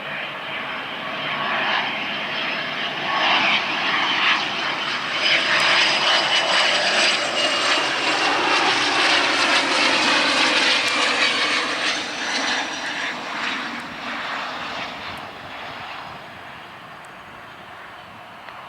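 Cessna CitationJet CJ2 business jet passing by, the sound of its twin turbofan engines swelling to a loud roar and then fading away. A high whine over the roar falls slightly in pitch as the jet goes past.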